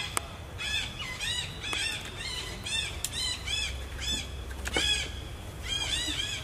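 Several small birds chirping over and over in quick, high, arched notes, a few each second, over a low steady rumble. A few sharp clicks are heard, one near the start and two more around the middle.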